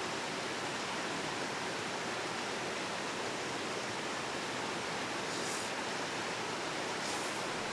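Mountain valley stream rushing in a steady wash of water noise, with two brief faint high hisses near the end.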